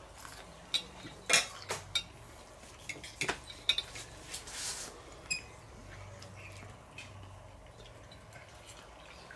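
A fork clinking on a plate: a few light, scattered clicks, thinning out about halfway through.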